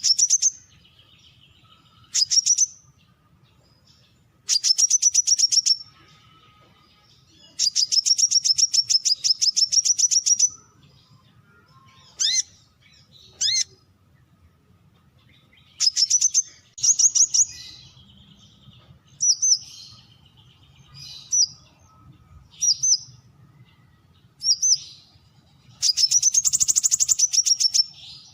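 Brown-throated sunbird calling: fast trills of sharp, high repeated notes, each run lasting one to three seconds, broken up by single short slurred chips in between.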